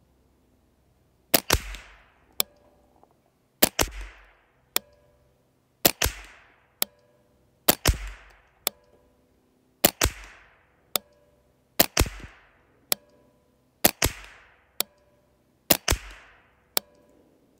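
JP Rifles JP15-22, a semi-automatic .22 LR AR-style rifle, fired eight times at a slow, even pace of about one shot every two seconds. Each shot is a sharp crack with a short ringing tail, followed about a second later by a fainter sharp click.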